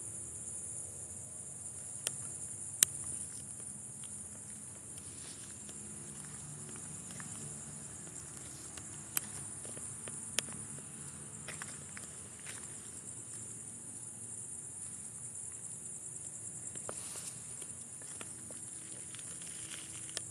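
Steady high-pitched chorus of night insects, with a few sharp clicks scattered through it, the loudest about three seconds in.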